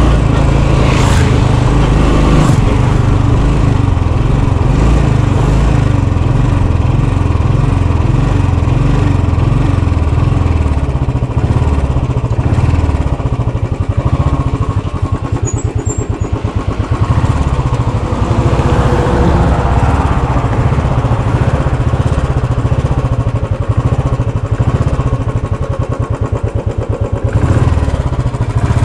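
Motorcycle engine running as the bike is ridden, then easing off into a slower, pulsing beat as it slows and pulls off the road in the second half.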